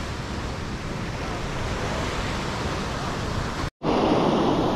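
Ocean surf washing on a beach, with some wind. The sound cuts out for a split second near the end, then the surf continues.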